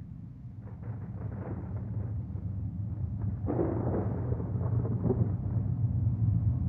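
Low, steady rumble of distant highway traffic, slowly growing louder, with rougher noise passing over it twice.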